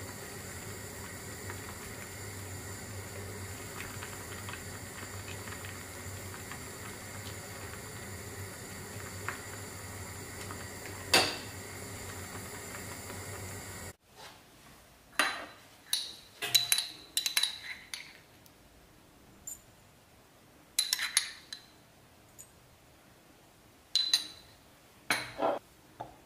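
A steady hiss and hum from the simmering pot on the stove, with one sharp clank of the tongs against the steel pot about eleven seconds in. It then drops away to near quiet and gives way to a run of sharp clinks from a metal spoon on ceramic bowls and a glass oil bottle.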